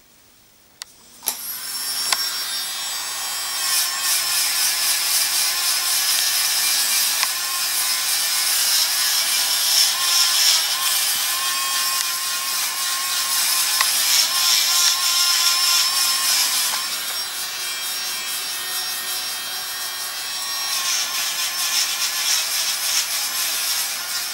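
Podiatry nail drill with a rotary burr starting about a second in, then grinding down hard skin on the sole of a foot: a steady high whine with slight wavers in pitch.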